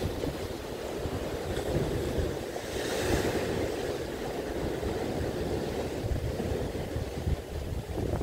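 Strong wind buffeting the microphone over the wash of choppy sea waves, with a short rise in hiss about three seconds in.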